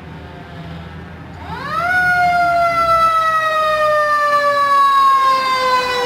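Fire engine siren starting up about a second and a half in: its pitch rises steeply to a loud, high wail, then slowly falls. Before it, a low vehicle engine rumble.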